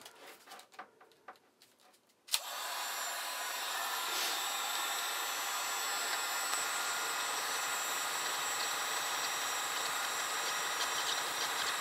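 Heat gun clicked on about two seconds in, then blowing steadily on its high setting, with faint handling clicks before it and a few small ticks over the blowing near the end.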